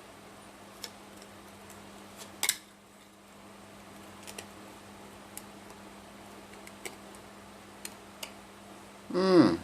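Scattered light clicks and taps from the opened emergency LED bulb and its small parts being handled, with one louder click about two and a half seconds in, over a faint steady hum.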